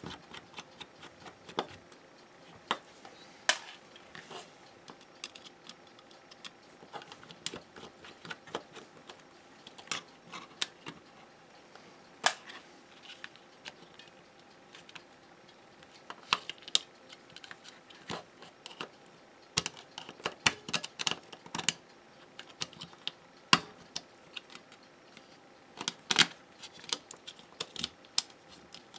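Irregular light clicks and taps of the plastic housing and circuit board of an AcuRite wireless thermometer receiver being handled and pried at during disassembly, bunched into quick runs in places.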